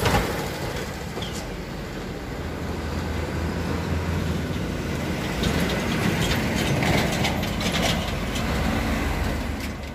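Passing road traffic: a light box truck's engine and tyres go by close at the start, then the engine noise of approaching vehicles builds, loudest between about five and eight seconds in, with some rattling.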